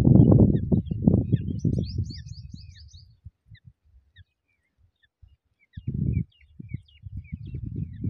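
Small birds chirping in thin, high notes, with a quick run of chirps about a second and a half in and scattered single chirps after. A loud low rumbling noise sits under the chirps at the start, fades out after about two seconds, and comes back near the end.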